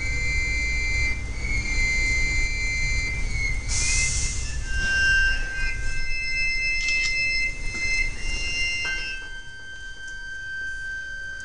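Improvised electronic loop music from Korg analog synthesizers (Monotribe, Monotron, Volca Keys): high, whistle-like synth tones sliding between pitches over a low droning bass, with a short burst of hiss about four seconds in. Near nine seconds the bass falls away and the music gets quieter, leaving a steady high synth tone.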